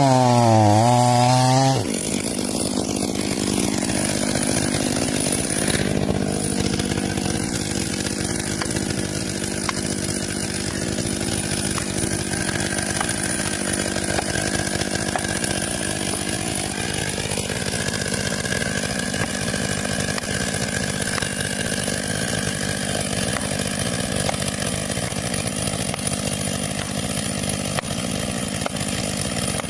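Chainsaw cutting wood. For the first couple of seconds the engine pitch dips and climbs back up under load. After an abrupt change it runs steadily through the rest.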